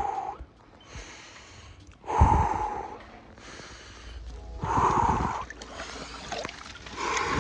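A man breathing hard from cold shock while sitting in ice water: loud, forceful breaths out with a voiced edge, about every two and a half seconds, with quieter breaths in between.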